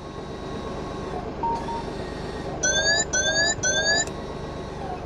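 Peugeot 5008 dashboard warning chime: three short beeps about half a second apart, each rising slightly in pitch, over a steady low hum. It sounds while the car is showing a parking brake fault warning.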